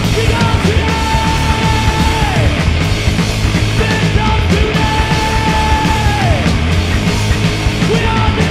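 Rock band playing loud and live: electric guitar, drums and cymbals. A high held note slides down at its end about every three seconds.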